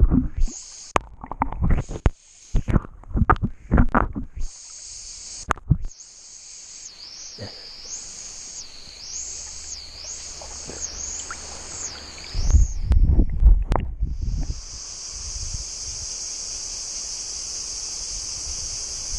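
Water sloshing and thumping against a half-submerged action camera's housing, in a run of sudden splashes over the first several seconds and again a little past the middle. Over this, a high-pitched buzz of cicadas swells and fades about once a second, then holds steady near the end.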